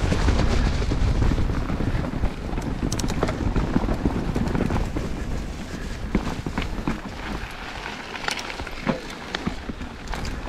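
Mountain bike descending a rough natural trail: tyres running over dirt and roots, with the bike rattling and clicking and wind rumbling on the microphone. The rumble eases about halfway through, leaving scattered rattles.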